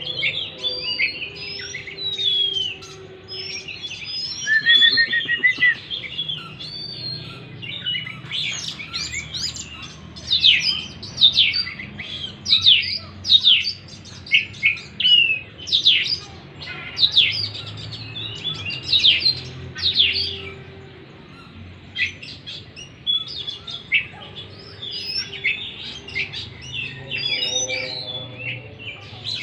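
Oriental magpie-robin (kacer) singing a varied song of clear whistles and quick downward-sweeping notes, delivered in fast runs with a short pause a little past two-thirds of the way through.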